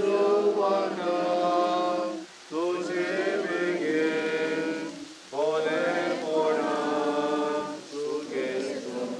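A group of mourners chanting a prayer together in unison, in phrases of two to three seconds with short pauses for breath between them.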